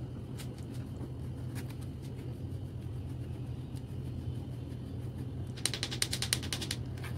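Silicone spatula rubbing cocoa powder through a fine mesh sieve: a few faint scratches, then near the end a quick rasping run of rapid clicks, about ten a second, over a steady low hum.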